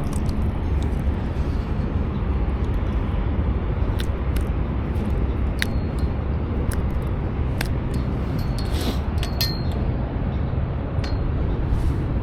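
Scattered light metallic clicks and clinks, irregular, over a steady low rumble.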